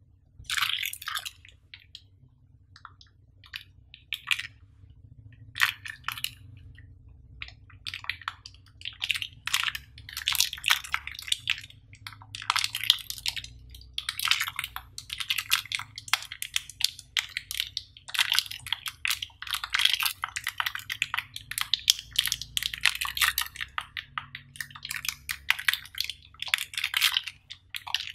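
Close-up handling of a rubbery anti-slip dashboard mat and a plastic phone-holder part being fitted into it: irregular crackling, rubbing and squishing. Scattered clicks at first, growing into near-continuous handling noise from about eight seconds in.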